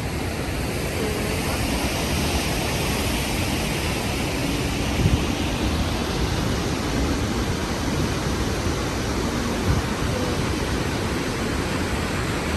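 Steady rush of a waterfall, an even noise with no rhythm, broken by two brief low thumps about five and ten seconds in.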